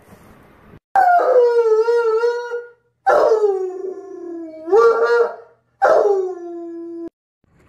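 A dog howling: three long howls, each starting high and sliding down in pitch. The first wavers, the second rises again near its end, and the last cuts off suddenly.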